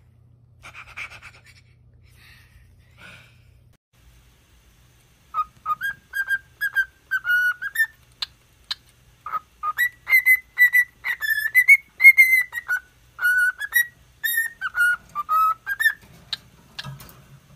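Cockatiel whistling a tune: a quick run of short, clear whistled notes, some sliding up or down in pitch, that lasts about ten seconds.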